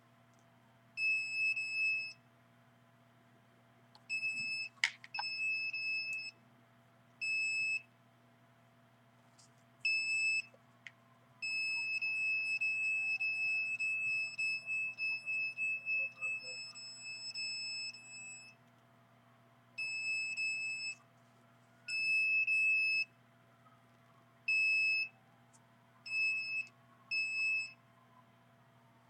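Handheld RF detector's alarm beeping in irregular bursts of one high, steady tone: some short beeps, one run lasting several seconds. It is reacting to a radio-frequency signal, which the owner takes for radiation aimed at his body.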